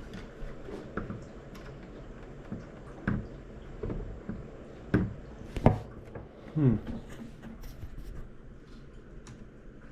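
Scattered knocks and taps of small objects being handled on a hard surface, the sharpest about three, five and six seconds in, with a short low sound falling in pitch near seven seconds.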